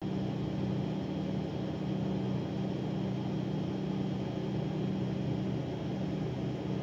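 Steady machine hum: a low drone with a faint high whine over it.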